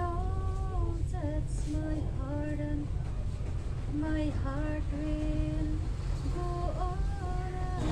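A female voice singing a slow melody in long held notes with pitch glides and short breaks, over a steady low rumble.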